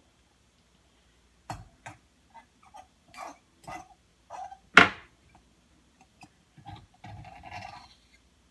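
Light clicks and knocks of utensils and containers being handled, with one sharp, much louder knock just before five seconds in.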